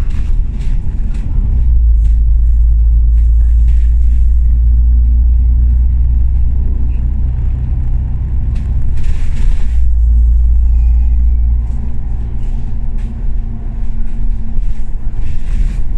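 Alexander Dennis Enviro500 double-decker bus running, heard from inside the cabin: a steady low engine drone with small rattles and clicks from the body, and a short hiss about nine seconds in.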